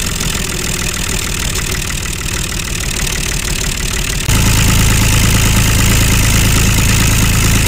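An engine idling steadily with an even rapid pulse. About four seconds in it steps up abruptly, louder and with a stronger low hum.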